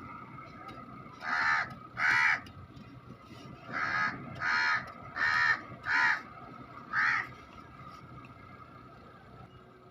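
A crow cawing seven times: two caws about a second in, then five more spaced about a second apart.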